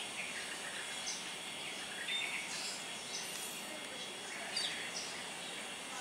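Asian glossy starlings calling: about five short, high chirps spread out, over a steady background hiss.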